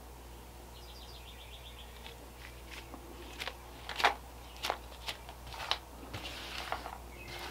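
A gloved hand handling and dabbing foam skull props: a few sharp knocks and soft rubbing, the loudest knock about halfway through, after a brief run of rapid high ticks about a second in.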